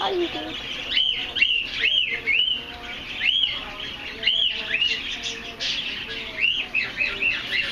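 Small birds chirping: a string of short, high, rising-and-falling chirps, some single and some in quick runs of three or four.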